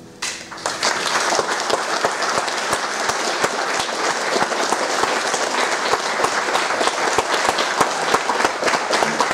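Audience applauding, breaking out a moment in as the last guitar chord dies away, then clapping steadily.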